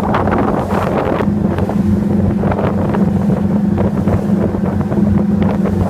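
Boat's engine running with a steady hum, with wind buffeting the microphone and a few knife chops on the cutting board as baitfish are cut.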